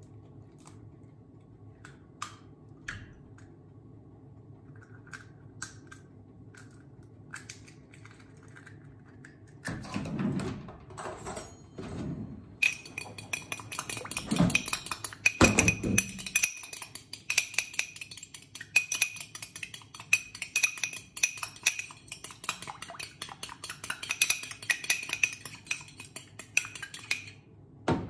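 A few light taps and knocks, then, from about 12 seconds in, a metal fork beating a raw egg in a ceramic ramekin: rapid, continuous clinking against the dish that stops shortly before the end.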